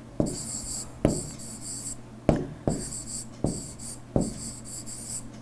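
A stylus writing by hand on a tablet screen: about six sharp taps, each followed by a short scratchy stroke, as a word is written out.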